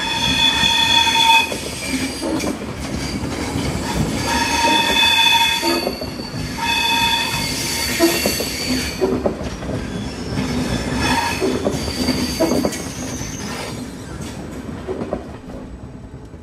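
SBB passenger coaches rolling slowly through a set of switches. Their wheels squeal in repeated high-pitched bursts over a steady rumble, with knocks as the wheels cross the points. The sound fades over the last few seconds as the train moves away.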